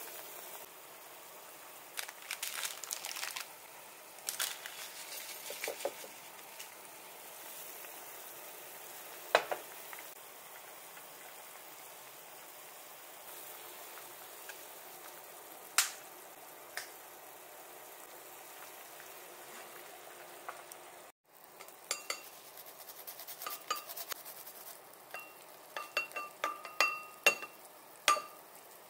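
Kitchen cooking sounds: a utensil knocking now and then against a pot over the faint bubbling of a simmering broth, then, after a cut, a rapid run of ringing clinks and scrapes as garlic is grated on a plastic grater over a ceramic bowl.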